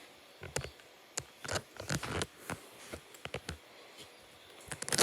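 Knife cutting and scraping into a bar of soap: a string of short, irregular scrapes and clicks, some in quick clusters.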